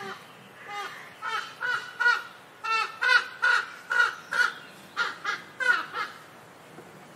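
Crow calling: a rapid run of short, harsh caws, about two a second, that stops near the end.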